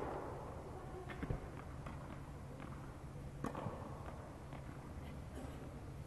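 Tennis ball knocks off racket strings and court, three sharp strokes about two seconds apart, over a steady low hum.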